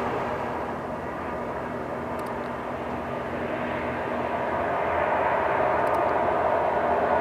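Steady engine noise of heavy machinery, easing slightly about a second in and growing louder again toward the end.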